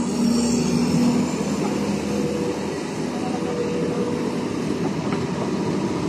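LiuGong 922E excavator's diesel engine running steadily under load while the machine's upper structure swings round on its tracks.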